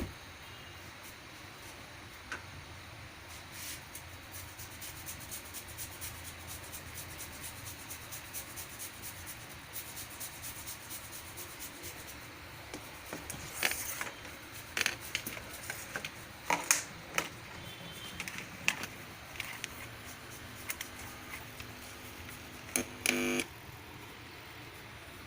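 Handling noise: scattered light clicks and taps over a faint steady hiss, growing more frequent in the second half, with a brief buzz near the end.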